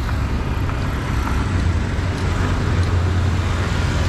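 Steady street traffic: motor vehicles running with a continuous low rumble.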